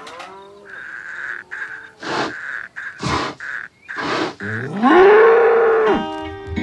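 Cartoon bull mooing: one long call that rises in pitch and then holds, the loudest sound, about 4.5 s in. Before it come three short noisy bursts about a second apart over a steady high tone. Music starts just as the moo cuts off near the end.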